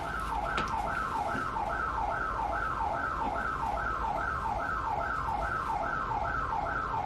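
Loud electronic alarm siren going off, repeating a falling whoop about two and a half times a second.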